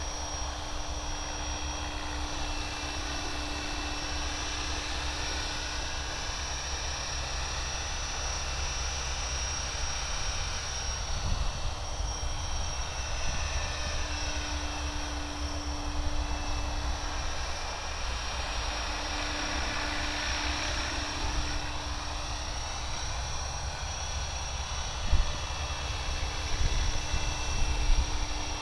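Align T-Rex 550E electric RC helicopter in flight: the rotor and brushless motor make a steady whine whose pitch sweeps up and down as the helicopter moves about. A low rumble of wind on the microphone lies under it, with a couple of sharp bumps near the end.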